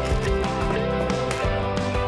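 Instrumental background music with held notes over a steady beat.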